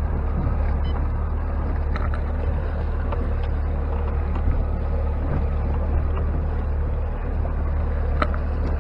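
Boat's outboard motor running at idle, a steady low rumble, with a few short clicks.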